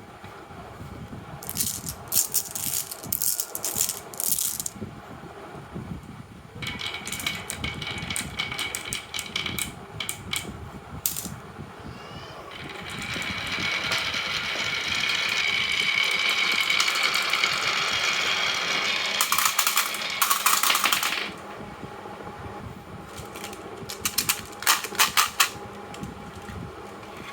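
Marbles clacking and rolling down a wooden marble run: bursts of quick clicks, with a louder steady rolling whir for several seconds in the middle.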